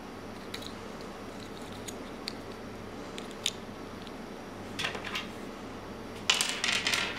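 Plastic pieces of a gear cube puzzle clicking and rattling in the hands as a corner piece is worked into place. A few scattered light clicks come first, then a short cluster about five seconds in, and a longer run of clattering clicks near the end.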